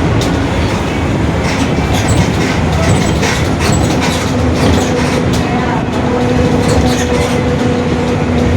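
Mercedes-Benz OF-1721 bus under way, its differential howling very loud over the drivetrain and road noise, with rattling clicks throughout. A steady whine settles in about four seconds in.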